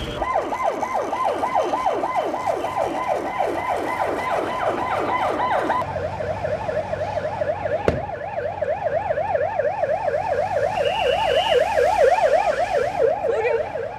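Ambulance siren sounding: a rapidly repeated falling wail, about three sweeps a second, that changes about six seconds in to a faster up-and-down warble, growing louder near the end.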